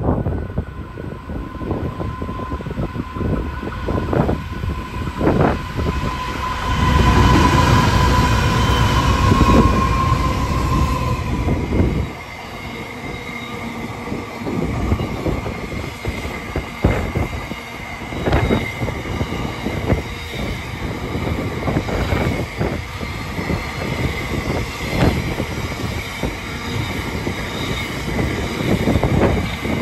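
Diesel-hauled intermodal container freight train running through a station. The locomotives pass first with a loud low rumble and a steady whining tone, which drops away about twelve seconds in. The container wagons then roll by with irregular wheel clicks and a faint high wheel squeal.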